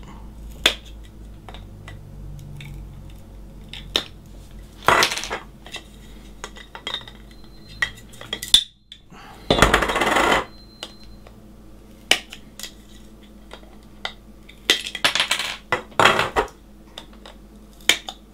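Hands working a rubber tyre and foam insert onto a chrome RC truck wheel: scattered light clicks and clinks of the wheel being handled, with a few longer scraping, rubbing bursts.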